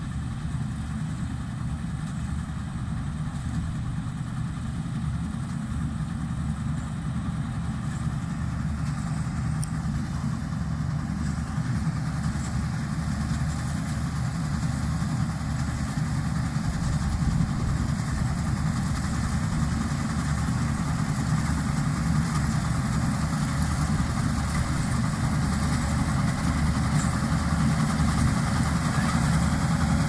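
Combine harvester running as it cuts rice, a steady engine and machinery drone that slowly grows louder as the machine comes closer.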